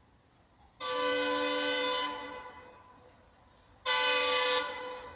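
Air horn of an approaching ALCO WDM-3A diesel locomotive sounding twice: a longer blast of over a second, then a shorter one about three seconds later. Each is a chord of several steady tones that dies away in an echo.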